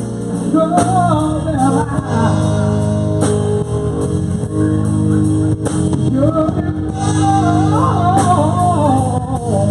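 Live band playing: a man singing over electric guitars, electric bass and a drum kit.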